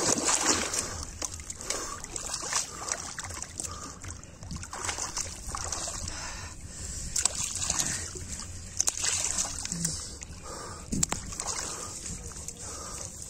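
Hands splashing and sloshing in shallow muddy river water, irregular strokes while groping through the mud for fish.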